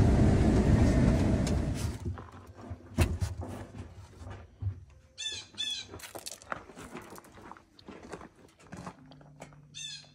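A loud vehicle engine runs and then cuts off about two seconds in. After that come scattered knocks and clicks, and a small bird gives two short runs of quick chirps, one midway and one near the end.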